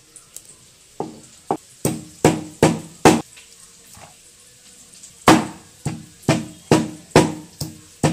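A hand-held stone pestle knocking on a stone grinding slab (shil-nora), pounding whole cinnamon and green cardamom. Six sharp knocks, a pause of about two seconds, then seven more, at about two and a half strokes a second.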